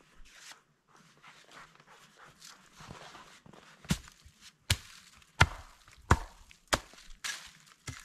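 Wood being chopped with an axe: about six sharp strikes, roughly two-thirds of a second apart, starting about halfway through, after soft crunching steps in snow.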